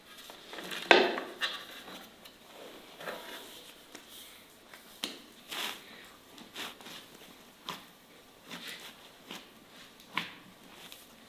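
Flour being dusted over a stone countertop and a ball of dough handled on it: a loud soft thud with a brief scuffing tail about a second in, then scattered light taps and clicks.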